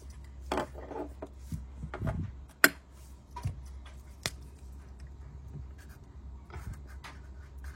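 Zippo lighter being handled: light rubbing and tapping, with a sharp click about two and a half seconds in and another about four seconds in.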